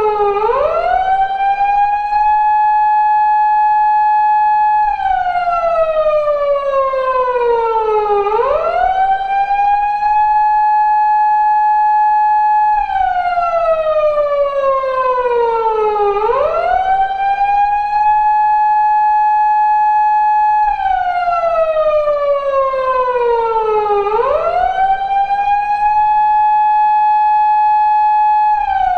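Japanese police car siren, a recreation of the 2000s-era wail, in its 8-second cycle: a quick rise in pitch, a tone held for a few seconds, then a slow fall. The cycle repeats about three and a half times.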